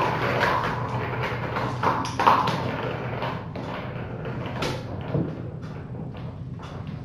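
Kittens playing on a hard floor: a run of light thumps, taps and scrabbling paws, the loudest about two seconds in, over a steady low hum.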